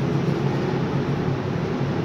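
Steady mechanical drone inside the cab of a hot metal overhead crane, with a constant low hum and no sudden events.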